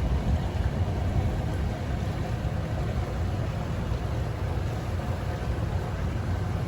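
Motorboat under way, its engine and hull giving a steady low rumble.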